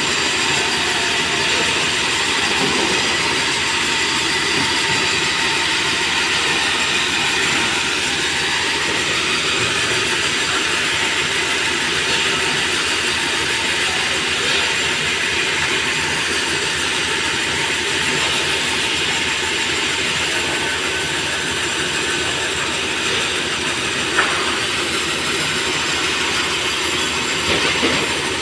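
Sawmill machinery running steadily: a band saw headrig and roller and chain conveyors carrying sawn merbau boards, making a dense, continuous mechanical noise. Near the end there is a sharp knock or two, as of a board or metal part striking.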